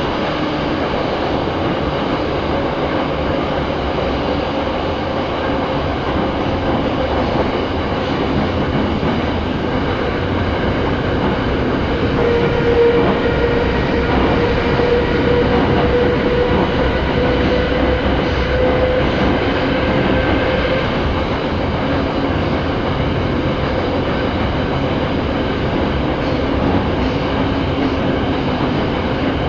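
Vintage Moscow metro car running through the tunnel, heard from inside the carriage: a steady rumble of wheels and running gear with a faint clickety-clack. A steady tone grows a little louder about halfway through, then eases off again.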